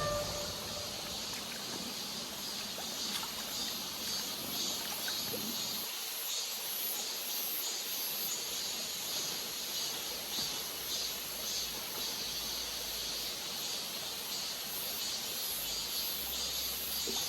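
Mountain valley stream flowing, a steady even wash of water noise.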